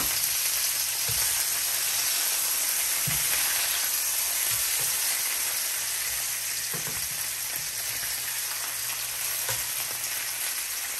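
Stuffed chicken breasts frying in hot olive oil in a pot, a steady sizzle on the freshly turned second side, with a few faint knocks.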